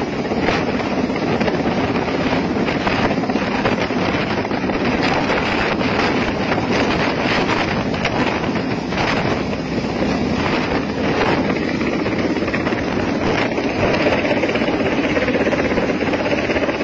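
Mil Mi-17-type military helicopter hovering low overhead with a load slung beneath it: loud, steady rotor and turbine noise, with the rotor downwash buffeting the microphone.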